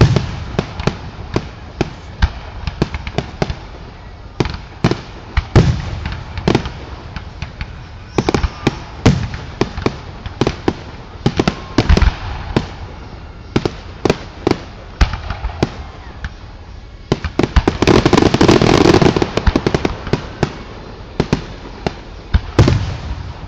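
Fireworks display going off: a steady run of sharp bangs and pops, often several a second, with a dense burst of crackling about three-quarters of the way through.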